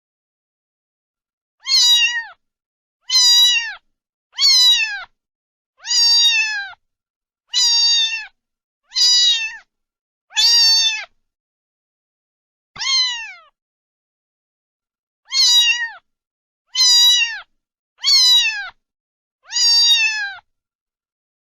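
A cat meowing over and over: about a dozen short, high meows, each dropping in pitch at the end, coming roughly every second and a half with one longer pause midway.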